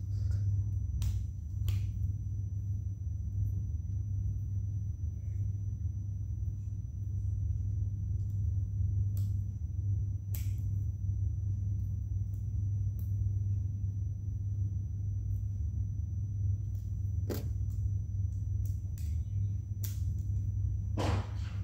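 A few scattered sharp clicks and taps of plastic Lego Technic pieces being handled and fitted, with a longer rattle near the end, over a steady low hum.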